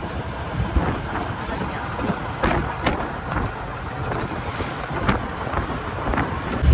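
Wind buffeting the microphone, a rough low rumble with scattered knocks and clicks.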